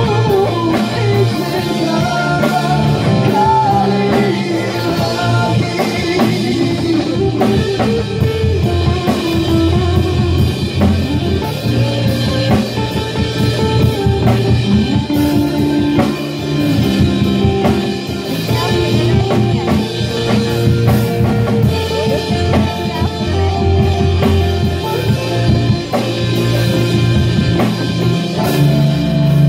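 Alternative rock band playing live: electric guitar, bass guitar and drum kit with a steady beat, and a male singer's vocals over part of it.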